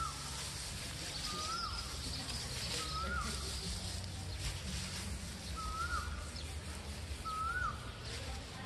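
Dry straw rustling as handfuls are pulled apart and scattered by hand for mulch. A bird repeats a short whistled note that rises and then dips, several times at intervals of one to three seconds.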